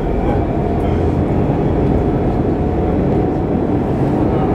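Stockholm Metro C15 train running along the track, heard from inside the carriage: a steady rumble of wheels and running gear, with a faint steady high tone above it.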